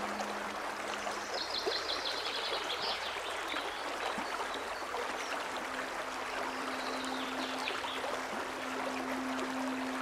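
Mountain stream running over rocks, a steady rush of water. A small bird gives a quick run of high chirps about a second in and again around seven seconds.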